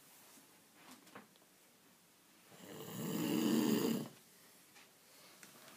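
A person snoring: one long, loud snore about halfway through, with quiet breathing gaps on either side.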